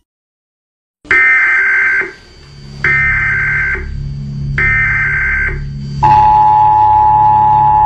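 Emergency Alert System broadcast tones: three short high-pitched data bursts about a second apart. About six seconds in comes the steady two-tone attention signal, held for about three seconds, all over a low drone.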